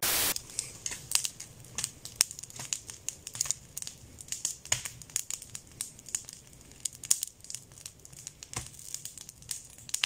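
A wood campfire crackling and popping with irregular sharp cracks, as it is stirred with a stick and throws sparks. It opens with a brief burst of TV-static hiss.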